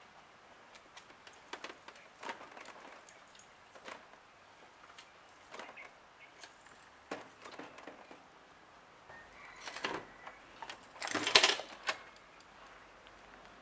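Scattered clicks and clunks of metal joints on a tilting side-wheel trike kit as the scooter is rocked by hand, with a louder rattling clatter about eleven seconds in.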